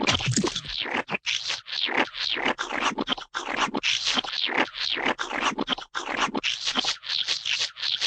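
Gooey splat sound effects: a continuous run of short, wet squelching splats, about three a second, with no pause between them.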